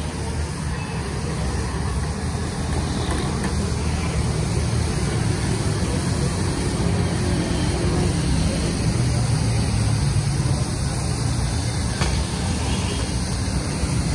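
Steady sizzling of chopped offal frying in butter on a large flat steel griddle (tawa), over a continuous low rumble.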